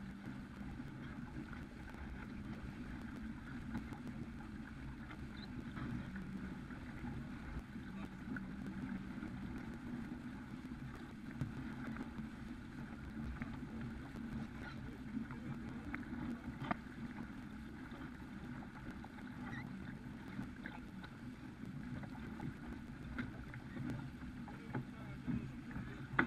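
Steady rush of water along the hull of a Farr 280 sportsboat sailing heeled at speed, mixed with wind noise, with a few faint clicks.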